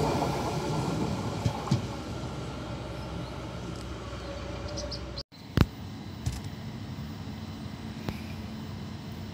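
Protos electric train running away down the line, its rumble fading. After a sudden cut comes a sharp click, the loudest sound, then the steady low hum of a Protos standing at the platform, with a few faint clicks.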